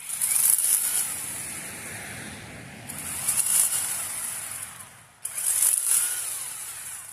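Chainsaw running in three loud bursts of two to three seconds each, its pitch rising and falling, stopping abruptly after the last.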